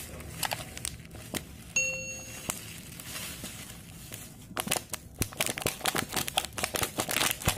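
Plastic sachet of temulawak drink powder crinkling as it is shaken and tapped to empty the powder into a mug: scattered clicks at first, then dense crinkling for the last three seconds or so. A brief ringing ping about two seconds in.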